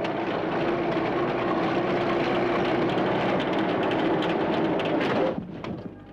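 Engine of a small military field vehicle running steadily as it drives across a grassy field, stopping abruptly about five seconds in.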